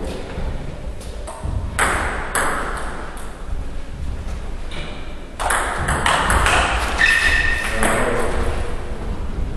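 Table tennis ball clicking off the table and bats in a run of quick, irregular hits, with a short high squeak a little past the middle.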